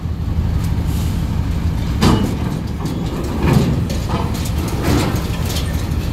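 Heavy bus diesel engine running steadily, with three short louder rushes of sound about two, three and a half and five seconds in.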